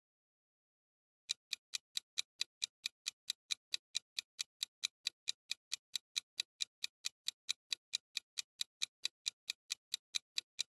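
Countdown-timer sound effect: a steady clock ticking, about four or five even ticks a second, starting a little over a second in after a brief silence.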